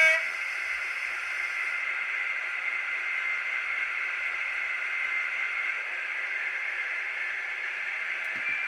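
Sound-decoder Class 56 diesel engine sound played through an N gauge model locomotive's tiny speaker: a steady, thin, hissy drone. The tail of a horn blast cuts off at the very start, and a few faint clicks and a new steady tone come in near the end.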